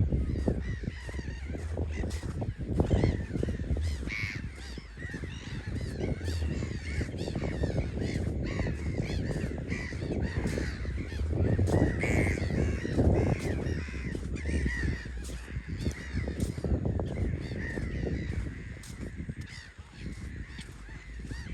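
A flock of seabirds calling over and over, many short rising and falling cries overlapping each other, over a steady low rumble.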